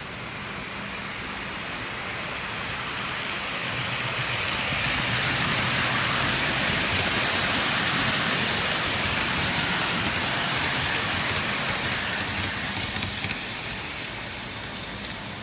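Model freight train's wheels rolling on the rails as it passes close by, the noise swelling to a peak about halfway and fading toward the end.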